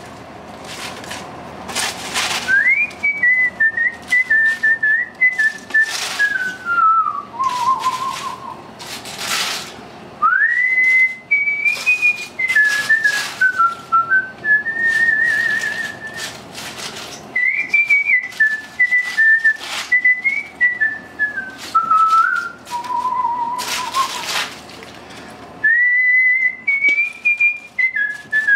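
A man whistling a tune: a single clear melody in phrases of several seconds with short breaks. Under it come short crisp crackles and rustles of cabbage leaves being handled and dropped into a steel pot.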